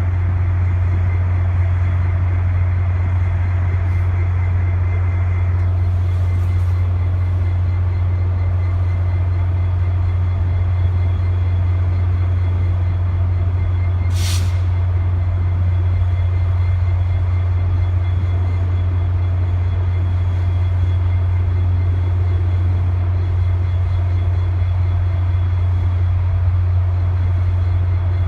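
Diesel passenger train locomotive running steadily with a deep, constant drone. A short, sharp hiss of air about halfway through fits an air brake.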